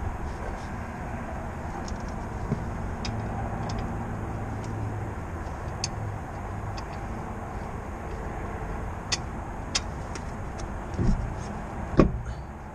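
Tyre and road rumble of a BMW E46 325xi heard from a camera mounted in the wheel well while driving, with scattered sharp clicks and a heavy thump near the end.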